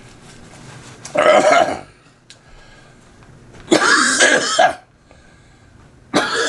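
A man coughing hard and clearing his throat after choking on food: three harsh, loud fits about a second long, with short pauses between.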